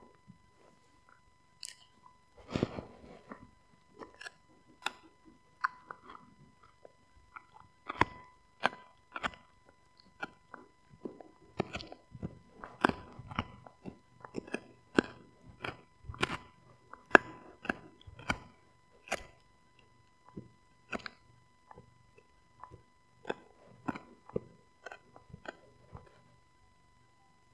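Husky gnawing a rawhide-style chew bone: irregular sharp crunching clicks of teeth on the hard chew, sparse at first, then coming one or two a second, with short pauses between bouts.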